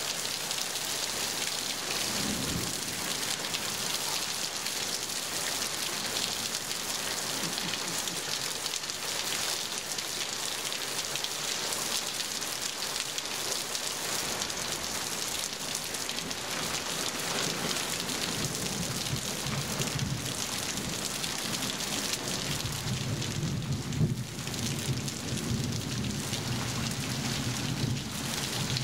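Heavy tropical rain pouring steadily onto foliage, ground and thatch. A low rumble builds from a little past the halfway mark and grows stronger toward the end.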